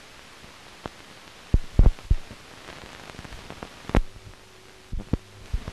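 Hiss of an old newsreel optical soundtrack, broken by scattered clicks and a few loud low thumps, the loudest a cluster about two seconds in. A low hum comes in near the four-second mark, as the picture cuts to the next shot.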